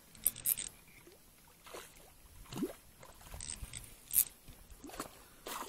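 Handling noise: several short, sharp clicks and scrapes spaced irregularly, with light rustling between them.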